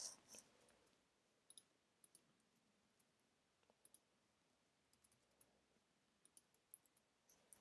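Faint, scattered clicks of a computer keyboard's keys, a dozen or so irregular taps against near silence.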